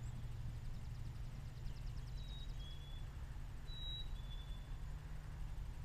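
A small songbird whistling a two-note call twice, the second note a little lower than the first, over a steady low rumble on the microphone.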